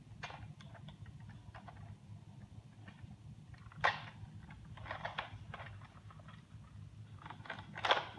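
Hard plastic clicks and knocks from a Nerf Zombiestrike Doominator blaster and its clip-on parts being handled and pushed together, with a sharper click about four seconds in and another near the end, over a low steady hum.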